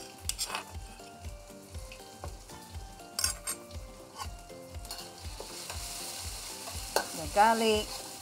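Pounded garlic, shallot and ginger paste sizzling in hot oil in a wok, with a metal spatula stirring and scraping against the pan; the sizzling grows stronger about five seconds in. Light background music with a steady beat runs underneath.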